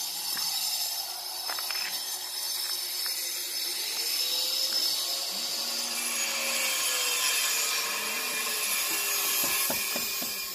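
A power tool running steadily, a loud high-pitched grinding hiss that fades near the end.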